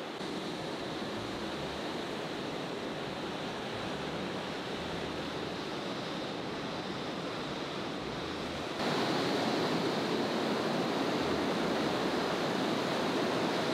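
Ocean surf breaking and washing up a sandy beach: a steady rush of waves that gets louder about nine seconds in.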